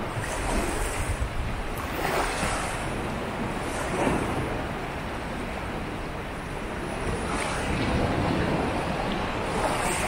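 Sea waves breaking and washing up on a beach: a continuous surf hiss that swells with each breaking wave about every two to three seconds.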